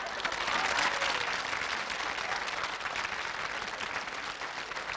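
Audience applauding: dense clapping that is loudest in the first second or so and then eases a little.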